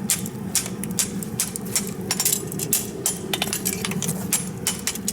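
Light, irregular metallic taps and clinks of a farrier's hammer working a steel concave horseshoe, several a second, over a steady low hum.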